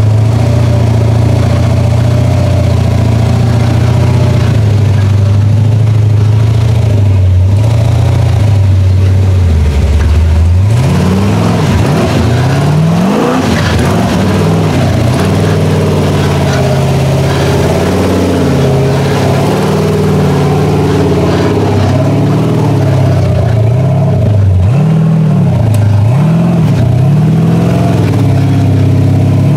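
Big-block V8 engine of a custom rock-crawling truck running steadily at low revs, then from about ten seconds in revved again and again, its pitch rising and falling with each throttle blip as it pulls the truck up a rocky climb. The blips come closest together near the end.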